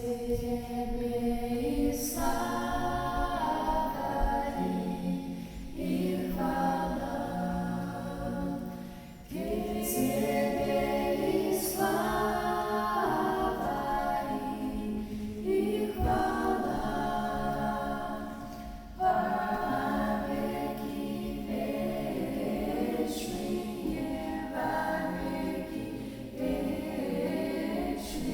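A family singing a song together in several voices, unaccompanied, in phrases of a few seconds with short breaks between them.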